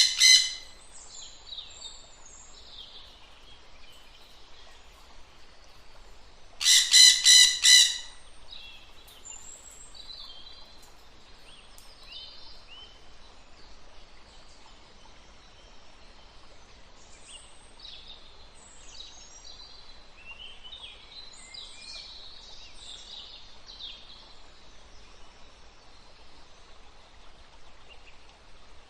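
Wild birds calling: faint chirps and twitters throughout, and a loud call of several quick, evenly spaced notes about seven seconds in.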